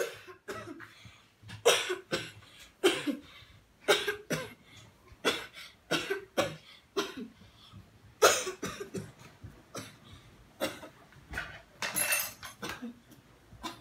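A boy coughing over and over in short, separate coughs, roughly one every second, some coming in quick pairs.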